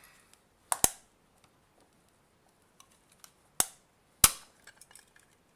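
Plastic case of a Nintendo Switch AC adapter snapping as its welded seams are forced apart: a quick double crack under a second in, another crack past three seconds, the loudest soon after, then a few small ticks.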